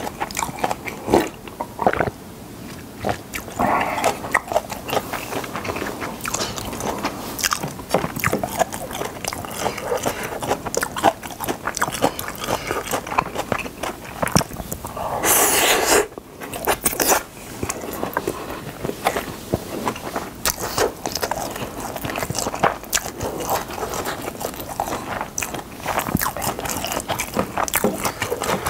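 Close-miked chewing and mouth sounds of Spam kimchi fried rice being eaten, with a plastic spoon scraping and clicking on the plate. About fifteen seconds in there is a louder half-second noise.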